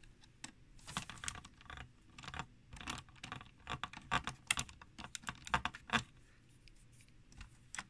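Small cross-head screwdriver turning a screw out of the plastic carriage handle of a Knitmaster 700 knitting machine: a run of irregular light clicks and taps, thinning out after about six seconds.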